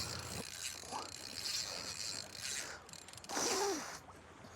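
Fishing reel ratcheting in uneven spells as a hooked fish pulls on the line.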